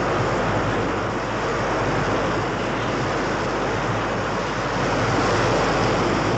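Sea water rushing and breaking against the hull of a moving aircraft carrier, with wind: a steady rush of surf and spray that eases slightly midway and swells again near the end.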